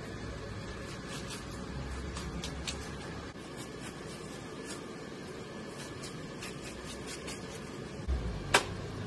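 Long knife cutting through the skin and flesh of a whole tuna: faint scattered clicks and scrapes over a steady background hiss, with a dull thump and then a sharp click near the end.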